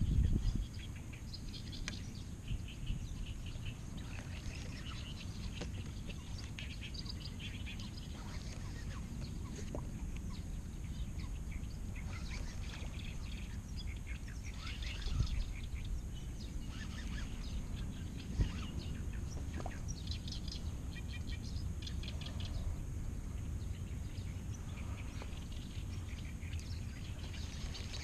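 Birds chirping and calling over and over from the reeds, over a steady low rumble. A few soft knocks come through, the loudest right at the start.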